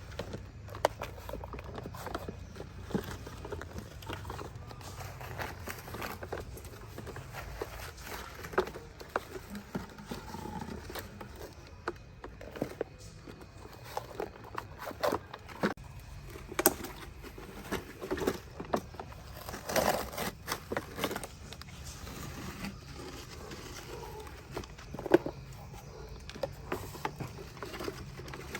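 Toy construction vehicles being played with: irregular clicks, knocks and scrapes, one sharper knock near the end, over a low steady hum.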